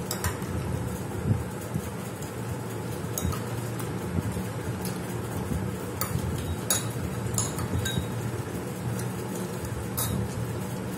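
Fingers picking at food on glass dinner plates while eating by hand, making scattered light, sharp clinks of skin, rings and food on glass, over a steady low background hum.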